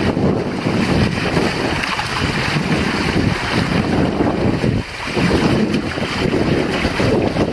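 Strong wind buffeting the microphone on a small sailboat under way, with water rushing and splashing along the hull beneath it. The wind rumble is the loudest part and rises and falls in gusts.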